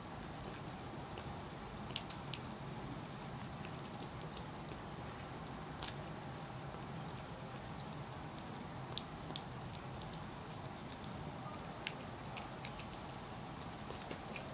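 An old cat licking and chewing soft tofu from a small ceramic bowl: irregular small wet clicks and smacks, a few at a time, over a steady low background hum.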